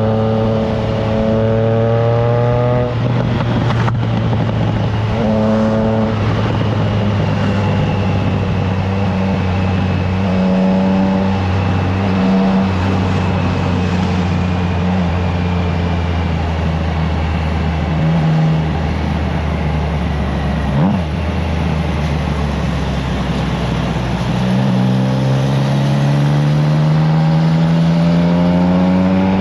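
Triumph Trident 660's inline-three engine through a FireTong exhaust, under way on the road. Its pitch rises at the start, holds fairly steady through the middle, then rises again over the last few seconds, with wind rushing on the microphone.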